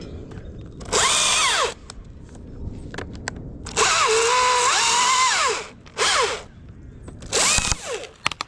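Battery-powered chainsaw cutting a limb in four short bursts, its motor whining up to speed and winding down each time. The longest burst, about four seconds in, drops in pitch partway through as the chain loads in the wood.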